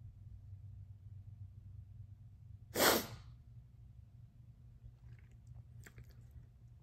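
One short, sharp burst of breath through the nose, like a sneeze, about three seconds in, followed by a few faint clicks.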